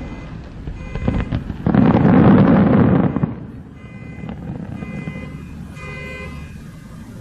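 Shakudama (10-inch) aerial firework shells bursting in quick succession. There are a couple of sharp bangs about a second in, then a long, loud burst of booms that lasts over a second and falls away into a fainter crackle.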